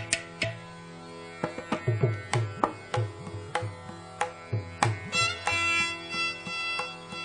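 Carnatic violin recital in raga Pantuvarali: a steady drone under a run of mridangam strokes, with the violin's sustained melodic line coming back in about five seconds in.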